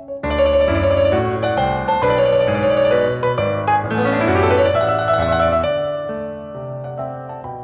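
Background piano music. A fuller, louder passage comes in just after the start, with a quick rising run of notes about four seconds in, and the playing softens near the end.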